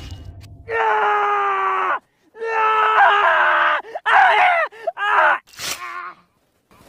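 A man's loud, drawn-out cries and yells in several bursts, the first held steady and the later ones wavering and falling in pitch, with a short sharp hit near the end.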